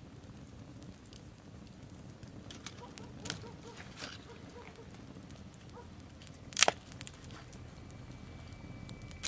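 Wood campfire crackling with scattered pops, the loudest a single sharp crack about two-thirds of the way in.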